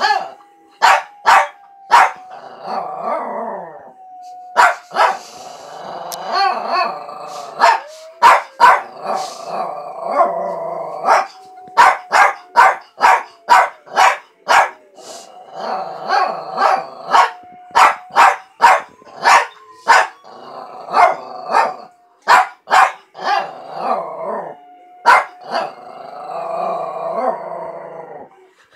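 A small dog trying to howl: warbling, growly howl attempts broken up by many short, sharp yips, often about two a second. The yips are the loudest sounds. A long held note runs under much of it.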